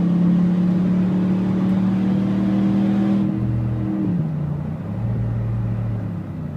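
Ford F-150's 5.0 V8 exhaust, a 3-inch straight pipe with no resonator into a Flowmaster 40 Series muffler, heard from inside the cab with the windows up. The engine pulls under full throttle at highway speed with a steady high note, then drops to a lower, quieter note about four seconds in.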